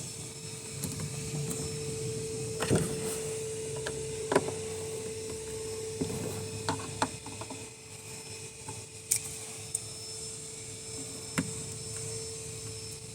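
Scattered sharp clicks and knocks, about half a dozen, of parts being handled over a steady hum.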